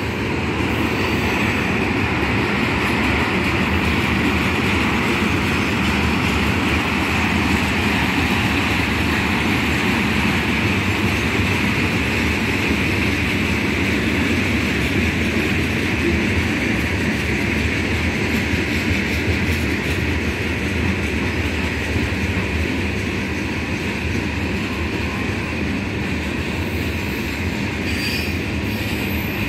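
Freight train's hopper and tank cars rolling past at steady speed: a continuous rumble of steel wheels on the rails, with a steady high-pitched wheel noise over it.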